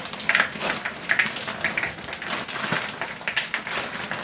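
Sugar-coated cereal pieces pattering into a bowl as they are poured out of a plastic zip-top bag, a dense irregular clatter of small ticks, with the bag rustling.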